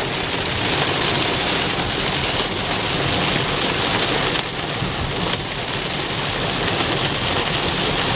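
Heavy rain falling steadily on a car, heard from inside it.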